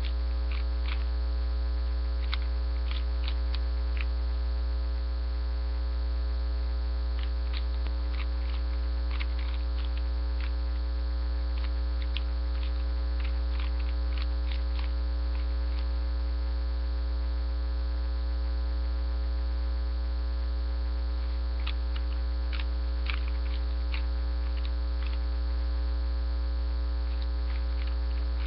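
Loud steady electrical mains hum with many overtones, over clusters of quick plastic clicks from a 3x3 Rubik's Cube being turned during a solve. The clicks come in runs of several seconds with pauses between them.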